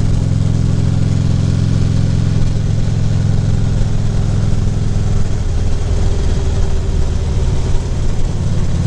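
Harley-Davidson Ultra Classic Limited's V-twin engine running steadily on the road at cruising speed, with wind and road noise on the helmet microphone. The engine note changes about five seconds in and returns near the end.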